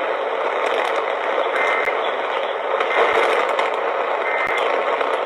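Radio receiver static: a steady hiss with scattered crackles and clicks.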